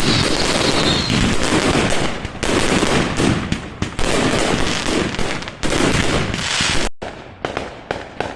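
Aerial fireworks display going off in a dense run of rapid crackling bangs and booms. About seven seconds in it cuts off suddenly, then separate, quieter bangs follow.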